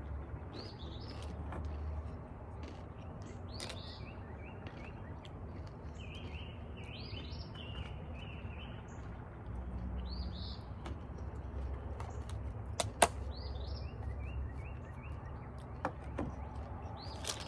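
Songbirds chirping, with many short repeated notes over a low steady rumble. A single sharp click about thirteen seconds in stands out above them, with a few fainter ticks after it.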